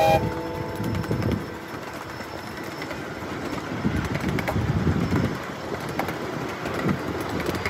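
A miniature ridable train running along its track, heard from a riding car: a steady rumble with irregular clacks from the wheels on the rails.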